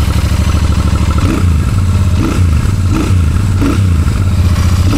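Royal Enfield Shotgun 650's 648cc parallel-twin engine running, its exhaust giving a low rumble, with a few light throttle blips from about a second in.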